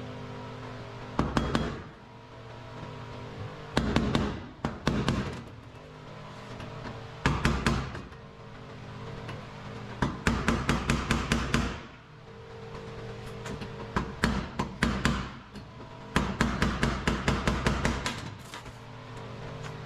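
Hammer tapping on car body sheet metal in six bursts of quick strikes, several a second, over steady background music.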